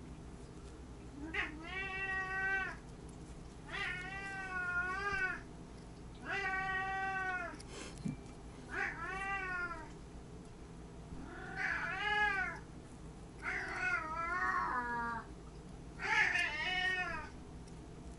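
A domestic cat meowing repeatedly: seven drawn-out meows, each rising and falling in pitch, about two to three seconds apart.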